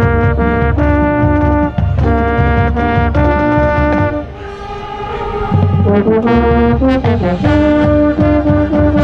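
Marching band brass playing sustained chords with strong low notes, one brass instrument right at the microphone. The music drops quieter about four seconds in, then swells back up.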